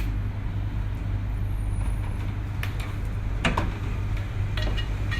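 A steady low hum, with a few light clinks of kitchenware scattered through it.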